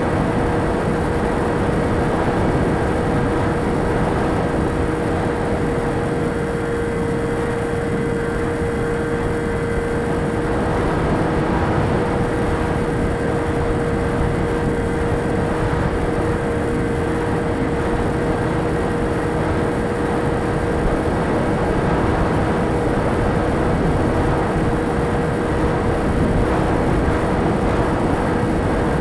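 Onboard sound of a model aircraft in flight: its motor and propeller hum at a steady pitch, with wind rushing and buffeting over the microphone.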